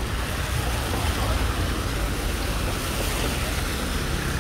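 Traffic on a wet city street: a steady hiss and low rumble of passing vehicles.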